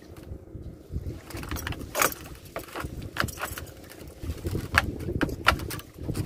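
About ten irregular light clinks and knocks over a steady low rumble of wind and water, as gear is handled in a small fishing boat.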